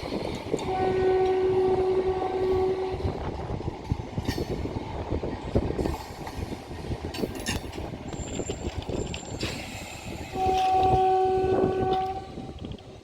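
Passing train's horn sounding two long, steady blasts of about two seconds each, one near the start and one near the end, over the continuous clatter of wheels on rails.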